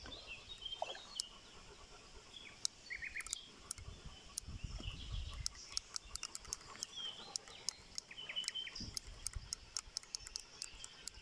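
Outdoor pond-side ambience: birds chirping in the background, with many scattered sharp clicks and a few patches of low rumble, such as wind or handling on the microphone.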